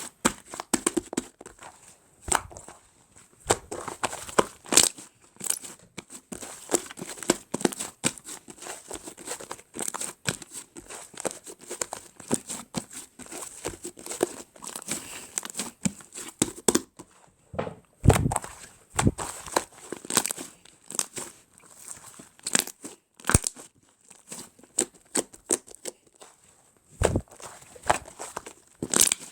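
Fluffy clay slime being squished, stretched and poked by hand, giving irregular sticky crackles and small pops, with a few deeper squelching thumps.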